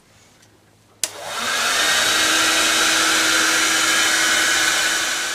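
Electric hair dryer switched on with a click about a second in, quickly building to a loud steady blowing rush with a steady hum underneath.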